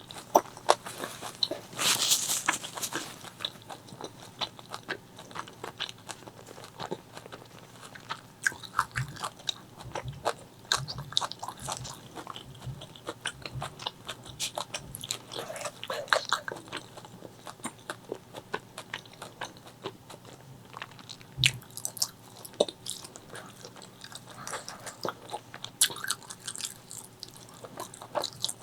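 Close-miked eating of spicy chicken liver, gizzard and rice: irregular chewing and biting with many wet mouth clicks, and a louder noisy burst about two seconds in.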